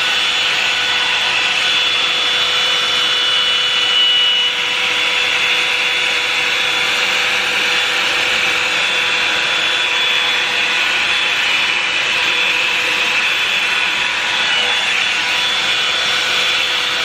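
Revlon One-Step hot-air brush dryer running steadily: loud rushing air over a constant motor whine.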